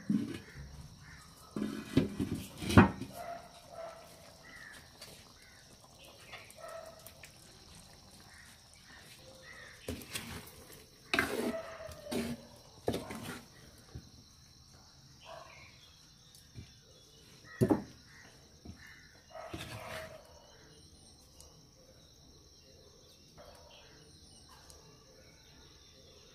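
Knocks and scrapes of a clay pot lid and a wooden spoon against an earthenware cooking pot, a few sharp knocks spread out, the loudest about three seconds in. Birds call faintly in the background.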